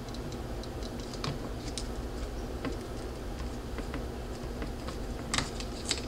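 Small, irregular clicks and taps of fingers handling the open iPod's plastic and metal parts while pulling its 1.8-inch SSD back out of the connector, with a couple of sharper clicks near the end, over a low steady hum.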